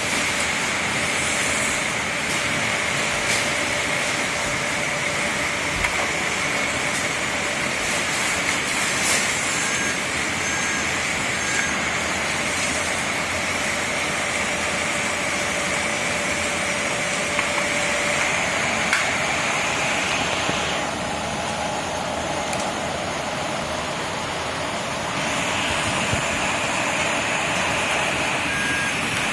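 Radio-controlled model bulldozer and drift cars running, their small electric motors and gearboxes whining steadily. A few short beeps come about a third of the way in, and the whine drops out for a few seconds about two-thirds of the way through.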